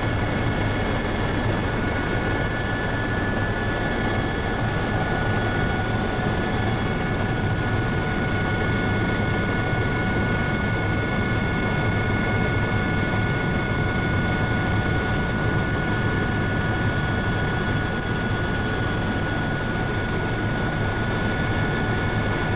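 Helicopter in flight heard from inside the cabin: a steady, unchanging drone of rotor and engine with a low rumble underneath and a few steady high-pitched whining tones on top.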